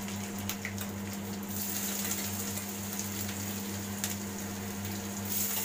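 Hot oil with crackled cumin sizzling faintly in a kadhai as chopped garlic, ginger and green chillies are tipped in off a steel plate, with a few light clicks. A steady low hum runs underneath.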